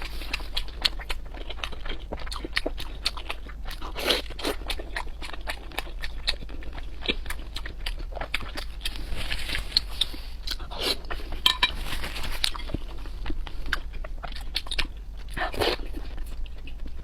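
Close-up eating sounds: crunchy bites and chewing, a dense run of crisp crackles and clicks.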